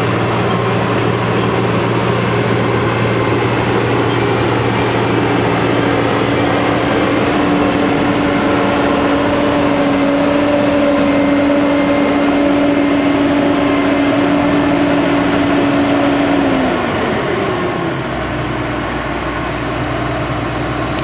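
Diesel engine of heavy farm harvest machinery running steadily at working speed. About 17 seconds in it winds down, its note and a faint high whine falling together, and it settles to a lower, steady idle.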